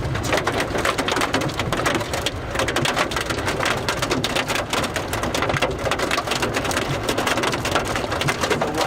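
Heavy rain pelting a vehicle, a dense, steady patter of countless small hits over a low rumble.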